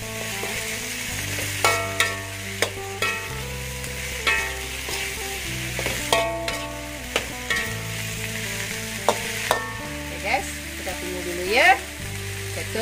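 Sliced cucumber and baby corn stir-frying in a metal wok: a steady sizzle, with the ladle repeatedly scraping and knocking against the wok. The loudest scrape comes near the end.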